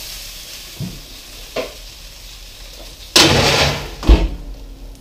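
A hot stoneware baking stone being handled out of the oven: two light knocks, then a loud scraping clatter about three seconds in as it is set down, and a heavy thud just after.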